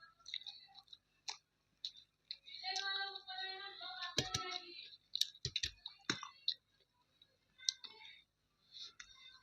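Mouth sounds of eating: scattered wet clicks and smacks of chewing, with a short stretch of a hummed or sung voice in the middle.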